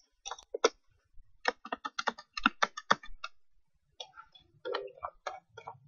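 Typing on a computer keyboard: a quick run of about fifteen key clicks, then scattered single clicks near the end, as a new heading is typed over a selected one.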